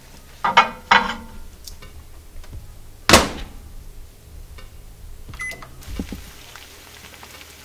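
A plate set on a Panasonic microwave oven's glass turntable with two light clinks, then the microwave door shut with a loud slam about three seconds in. A short keypad beep follows about five and a half seconds in as the oven is started.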